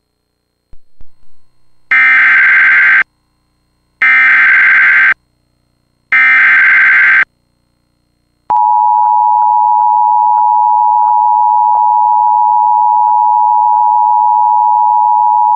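Emergency Alert System (EAS) alert opening: three one-second bursts of warbling digital data tones, the SAME header that encodes the alert, about two seconds apart. Then the steady two-tone EAS attention signal starts and holds.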